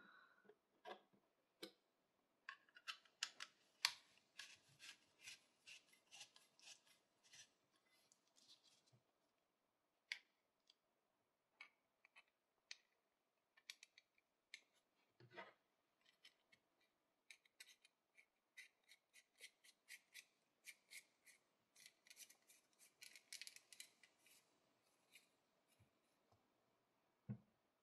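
Brass screw threads of an antique binocular's lens cell being turned by hand: two long runs of quick, faint metallic clicks and scraping, with a single louder knock between them.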